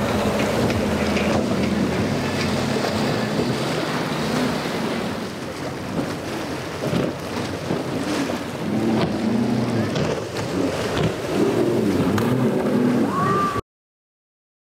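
Yamaha outboard motorboats running hard through choppy water, with the engine drone mixed with spray and wind on the microphone. Over the second half the engine pitch wavers up and down. The sound cuts out abruptly about a second before the end.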